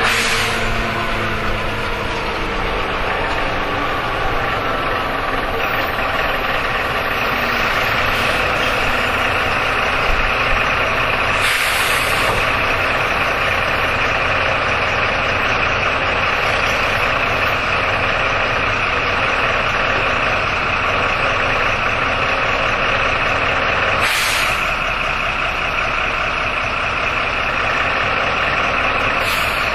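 Jelcz M121M city bus heard from inside while under way: its engine and drivetrain running with a steady whine, the engine note falling in the first few seconds. Brief hisses of air come about 12 seconds in, about 24 seconds in and near the end.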